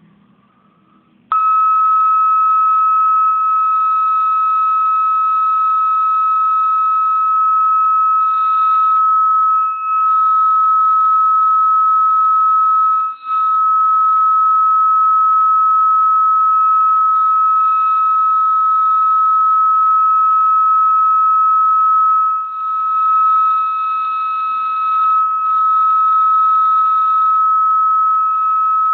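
Lenovo laptop giving a loud, continuous high-pitched beep on start-up, a single steady tone that starts abruptly about a second in and keeps going with only brief dips.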